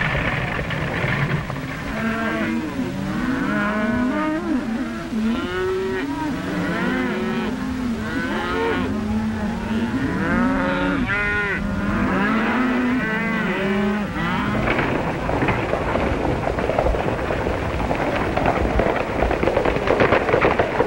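A herd of cattle mooing, many overlapping rising-and-falling calls over a steady rumble of the moving herd. About fourteen seconds in the mooing stops and a dense clatter of galloping horses takes over.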